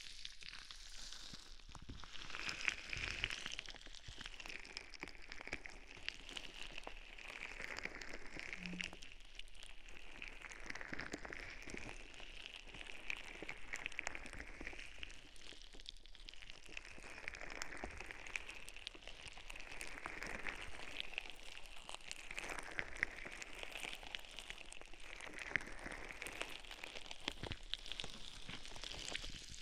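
Close-up crackly scratching and rubbing at a binaural microphone's ear, as in ear-cleaning ASMR, made up of many tiny clicks and swelling and fading in slow strokes about every two seconds.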